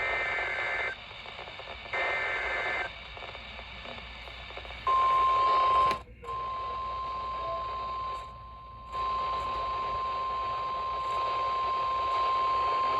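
NOAA Weather Radio Emergency Alert System signalling: two roughly one-second screeching SAME digital header bursts a second apart, then about five seconds in, the steady single-pitch 1050 Hz warning alarm tone begins and holds, with a brief dropout soon after it starts. This is the header and alert tone that announce a new warning.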